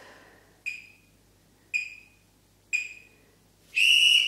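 Interval timer beeping a countdown: three short high beeps about a second apart, then one longer beep near the end, signalling the end of a 10-second hold.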